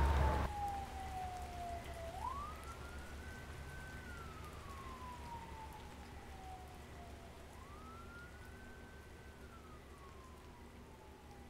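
A siren wailing slowly, each cycle rising quickly and then falling over several seconds, fading away as it goes. A loud low rumble cuts off about half a second in.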